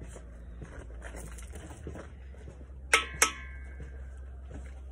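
Two sharp metallic strikes about a quarter second apart, a hammer hitting a steel brickwork corner profile, each ringing briefly, with a few lighter knocks around them.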